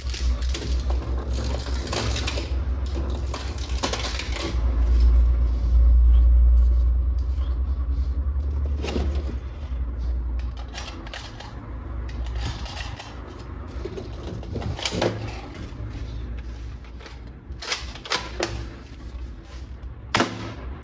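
Plastic toy pieces and packaging being handled, with scattered clicks and knocks. A low rumble of handling noise fills the first half.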